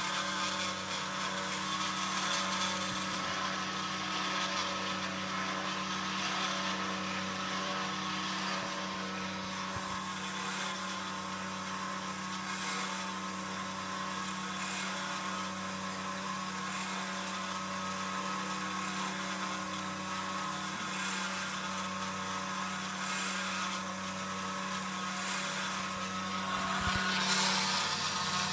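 Homemade CNC router running a job: the spindle motor turns a 1.5 mm HSS bit through 6 mm Depron foam while stepper motors drive the gantry, giving a steady hum and whine with a high hiss.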